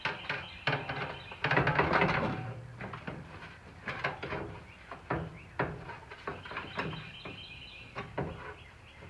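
A loose, cut sheet-metal Beetle fender being handled and held against the car body: irregular knocks and clatters, with a louder scrape about one and a half to two and a half seconds in.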